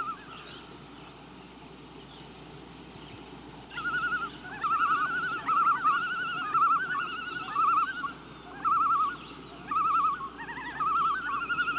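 Loons giving wavering tremolo calls, a rapid quavering note repeated in runs that overlap one another, beginning about four seconds in after a stretch of faint hiss.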